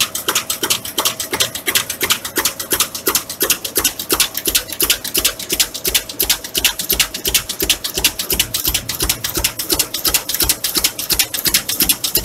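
Meat dicing machine running, its cutter clacking in a fast, even rhythm of several sharp strikes a second over a faint steady hum.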